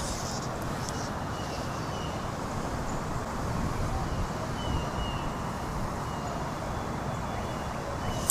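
Steady low rumbling outdoor noise with a few faint, short high-pitched whistles, ending in a sudden loud burst of noise.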